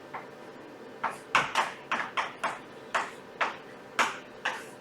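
Handwriting strokes: about a dozen quick, short strokes in an irregular run, as working is written out.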